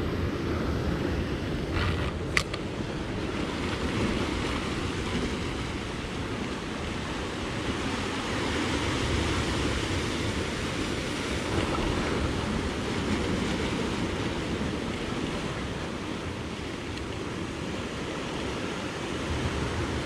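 Sea surf breaking and washing against a rocky shore below, a steady rushing with wind buffeting the microphone. A single sharp click sounds about two seconds in.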